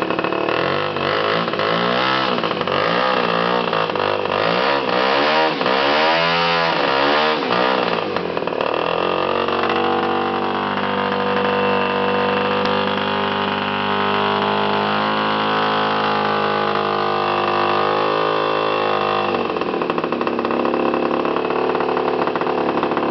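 Desert Aircraft DA-85 single-cylinder two-stroke petrol engine of a large RC model aircraft, running on its first run-up. For the first eight seconds or so the throttle is opened and closed several times, the pitch swinging up and down. It then holds a steady higher speed, and drops back to a lower, idling speed near the end.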